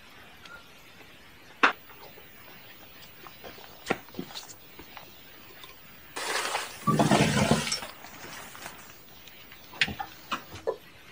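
Scattered clinks and knocks of camp gear being handled, and about six seconds in a loud rustle of about a second and a half as a tarp awning is pulled down off the side of a pickup truck.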